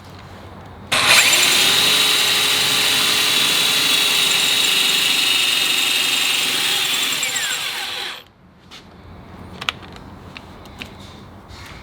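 Power drill pressing a bit into thick multi-layer steel: the motor starts suddenly about a second in, runs with a steady high whine, slows with a falling pitch and stops after about seven seconds, followed by a few faint clicks. The bit is struggling to cut through the layered steel.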